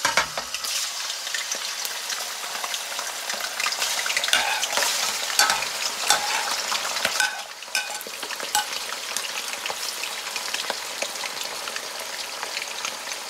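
Raw chicken gizzards sizzling as they are slid into hot oil in a wok, a dense sizzle full of sharp crackles and pops. The sizzle eases a little about halfway through as more pieces settle in the oil.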